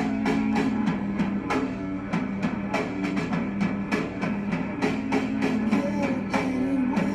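Instrumental rock music: distorted electric guitar notes over a steady drum beat, with no vocals.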